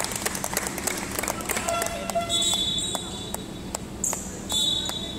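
A basketball bouncing on a hardwood court in a run of sharp knocks during play, with voices in the hall. Two high-pitched held squeaks come about two seconds apart.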